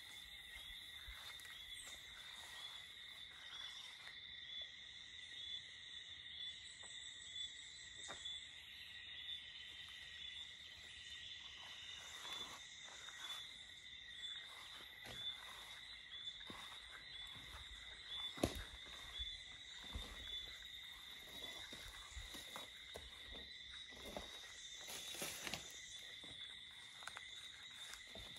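A steady chorus of insects shrilling at two high pitches, with scattered soft rustles and knocks and one sharp knock about eighteen seconds in.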